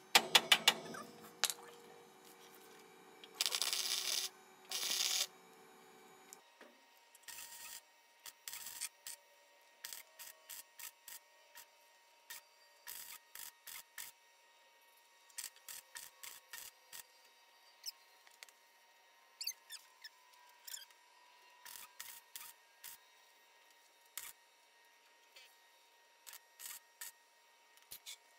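Welder tacking a new steel frame piece in place: a few sharp clicks in the first second or so, two crackling welding bursts of a second or two near four seconds in, then many short tack-weld bursts, each a fraction of a second, one after another.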